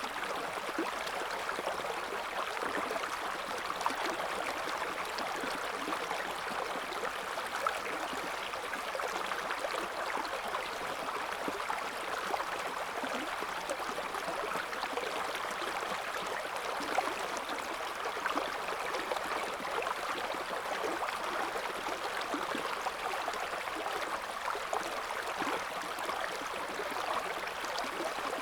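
River water flowing over stones, a steady babble with small splashes and gurgles throughout.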